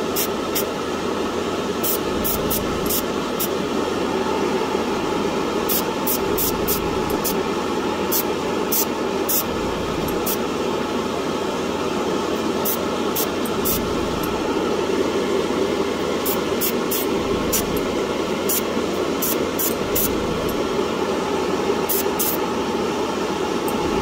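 Steady whoosh of a spray booth's extractor fan, with short, irregular high hisses of an airbrush spraying paint in quick bursts.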